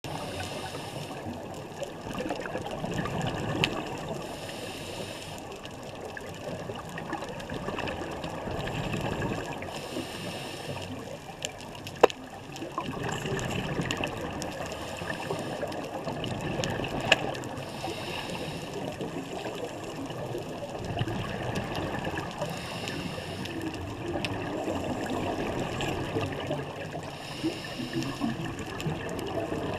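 Scuba diver breathing through a regulator underwater: a hiss on each inhale every several seconds, alternating with low, gurgling rushes of exhaled bubbles. A few sharp clicks stand out, the loudest about twelve seconds in.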